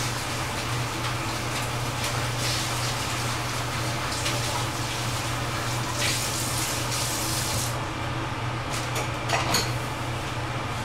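Kitchen tap running in a steady hiss over a low steady hum; the water stops a few seconds before the end, followed by a few light clinks of dishes.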